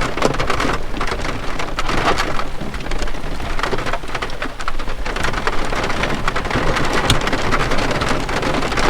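Heavy rain coming down hard, a dense steady hiss full of individual drops hitting surfaces.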